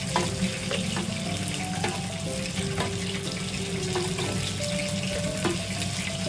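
A steady rushing noise throughout, with a few light clicks of metal kitchen tongs against a metal baking tray as pieces are picked off it. Soft background music notes play underneath.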